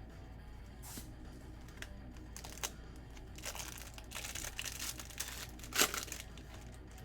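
Wrapper of a Bowman baseball card pack being torn open: a few short crinkles, then a longer run of crinkling and tearing with a sharp snap near the end.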